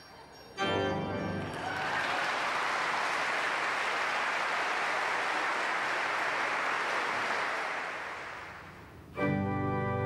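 A pipe organ sounds a closing chord about half a second in, then an audience applauds for several seconds, the applause fading away. About nine seconds in, the organ starts again with full sustained chords.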